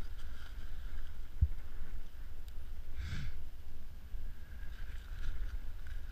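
Steady low wind rumble on the microphone, with a short thump about one and a half seconds in and a brief rustle about three seconds in as the small ice-fishing rod and reel are handled.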